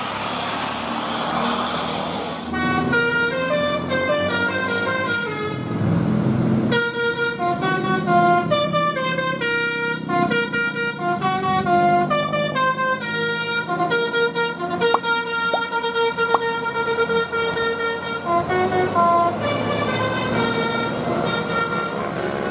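Bus 'basuri' telolet horn playing a melody of stepping notes on its air horns, with a brief break a few seconds in, over bus engine and road noise.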